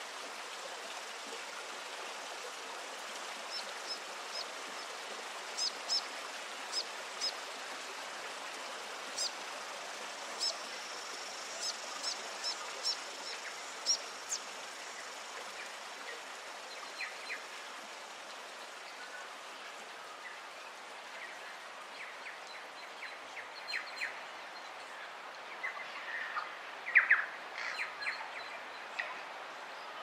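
Stream water running steadily, with wild birds chirping over it: short, sharp, high chirps through the first half, then lower calls, loudest in a quick cluster about 27 seconds in.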